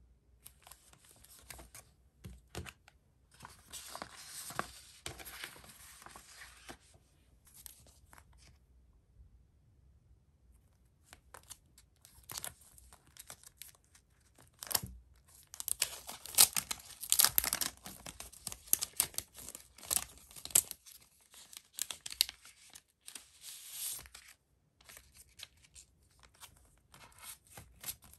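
Hands crinkling and rustling clear plastic packaging and kraft paper envelopes: a stretch of soft rustling about 3 to 7 seconds in, then a louder, denser crinkling with sharp crackles from about 15 to 24 seconds, with a few light ticks and rustles in between.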